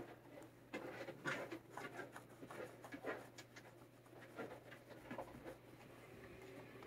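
Thick suede protective glove stroking and rubbing a cat's fur: faint, irregular scratchy rustling with soft clicks that thin out near the end, over a steady low hum.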